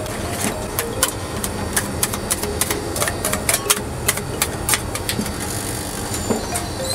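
Metal spatulas tapping, chopping and scraping on the frozen steel pan of a rolled ice cream machine, giving quick, irregular clicks and scrapes over a steady low hum.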